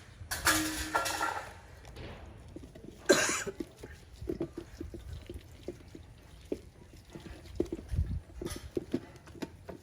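Bath water splashing and dripping, with one sharp splash about three seconds in and many small drips and splashes after it. Near the start there is a brief high-pitched squeal.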